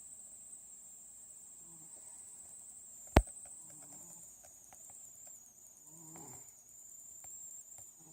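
A sleeping cat snoring softly, one snore about every two seconds. A single sharp click about three seconds in, over a steady high-pitched chirring.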